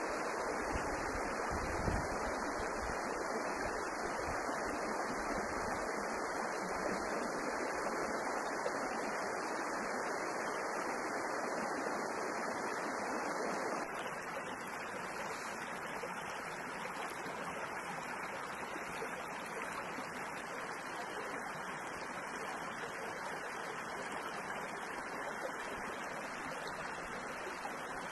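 Small shallow stream running over stones, a steady rush of water that drops a little in level about halfway through.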